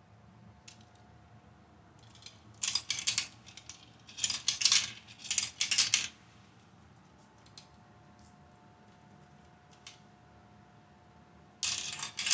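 Marbles clattering through a plastic marble run track: a few seconds of rapid rattling bursts from about two seconds in, single clicks between, and another burst of rattling near the end. Many marbles are running at once.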